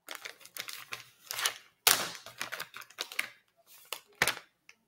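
Clear plastic soft-bait bag crinkling and rustling as it is handled and pulled open, in a run of crackles and sharp snaps, loudest about two seconds in.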